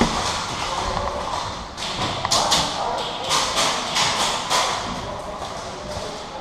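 Irregular thuds and rustling hiss, in short clusters, like footsteps and gear moving with a player on the move.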